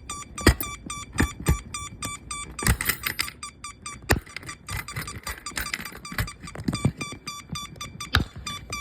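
Fire alarm sounder pulsing rapidly, about four short tones a second, interrupted by a series of sharp knocks and thumps.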